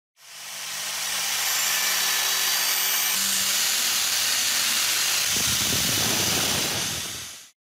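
Spinning grinding wheel grinding the rusty, pitted steel blade of a kukri, a steady high grind over a motor hum. It fades in at the start, turns rougher and heavier about five seconds in, and cuts off just before the end.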